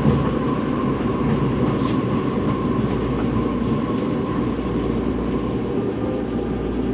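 Running noise heard from inside a Toei 12-600 series linear-motor subway car, a steady rumble with a faint whine that fades about halfway through, as the train nears a station.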